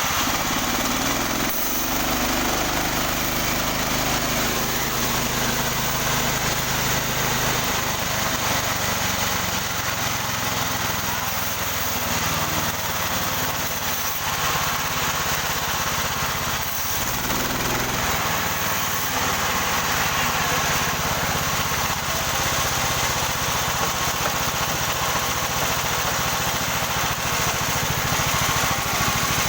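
Small engine of a portable sawmill running steadily under work, with a continuous hiss over the engine note.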